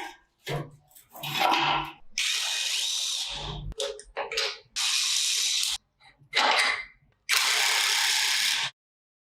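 Repeated bursts of hissing, the three longest each lasting about a second to a second and a half, with short knocks and clatter of tool work between them.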